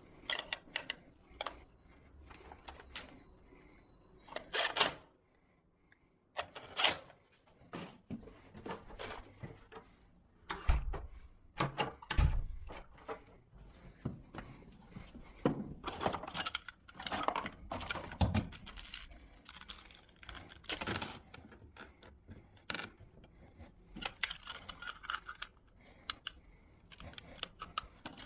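Small metal lock parts clicking and clinking as a door knob set is handled and fitted, with irregular taps and a couple of heavier knocks.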